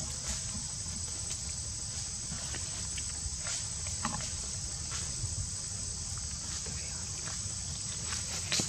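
Steady high-pitched drone of insects, with a few faint clicks and rustles.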